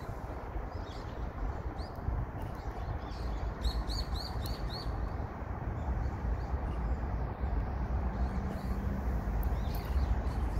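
Small birds chirping, with a quick run of about five chirps around four seconds in and a few scattered chirps elsewhere, over a steady low outdoor rumble.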